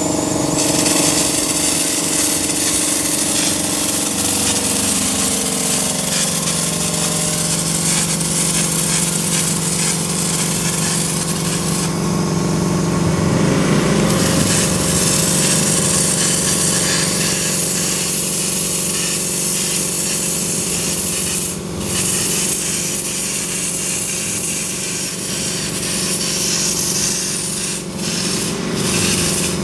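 Hopper spray gun blasting sand-texture paint with a continuous hiss of compressed air, over the steady hum of the air compressor running. The spray eases off for a moment about twelve seconds in and dips briefly twice more near the end.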